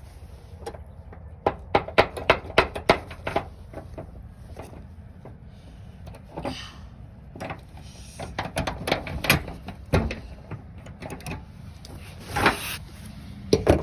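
Knocks and clatter of gear being handled and a door being worked in a storage shed: a quick run of sharp knocks a couple of seconds in, scattered knocks and a rustle after, and a louder knock near the end.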